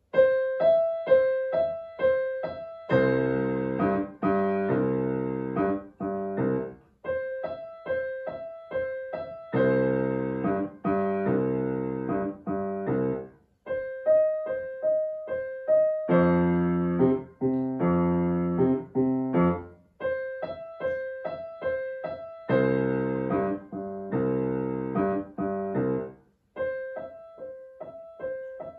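Grand piano played solo, a blues piece. A light, repeated two-note figure in the treble alternates about four times with fuller, louder passages of low chords.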